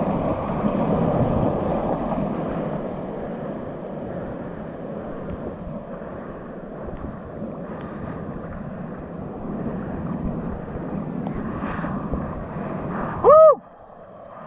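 Whitewater surf rushing and washing around a camera held at water level, louder in the first couple of seconds, with wind on the microphone. Near the end, one short, loud whoop that rises and falls in pitch.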